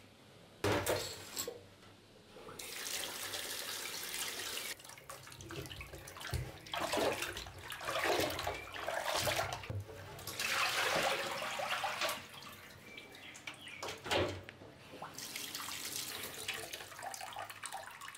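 Tap water running into an enamel pot of beef hoof pieces in a stainless-steel sink, in four spells as the meat is rinsed and the pot filled. There are sharp knocks from the pot against the sink, one near the start and another about two-thirds of the way through.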